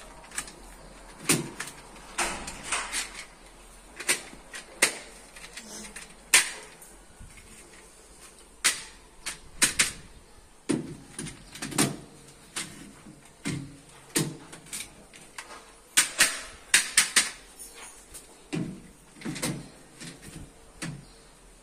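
Irregular sharp clicks, clunks and scrapes of a metal washing-machine stand's slotted rails and bolts being handled and fitted around a washing machine, some knocks ringing briefly.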